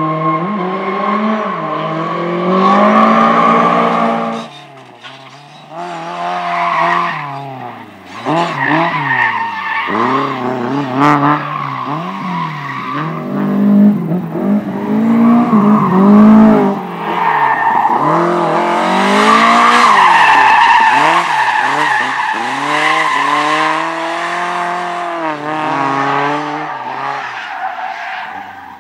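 A competition car driven hard through a slalom course: the engine revs up and down over and over as the driver accelerates, lifts and changes gear, with a clear lift-off about four seconds in, while the tyres skid and squeal through the turns.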